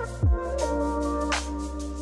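Background electronic music: sustained synth chords over a deep bass hit that falls in pitch about a quarter second in, with a sharp drum hit near the middle.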